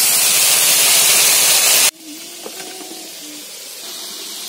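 Kul (jujubes) frying in oil in a kadai, a loud steady sizzling hiss that cuts off suddenly about two seconds in; after that only a much quieter room sound with a few faint tones.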